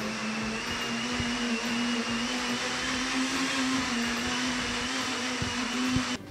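Mondial countertop blender running steadily as it blends a thick banana, oat and nut batter, then stopping abruptly near the end.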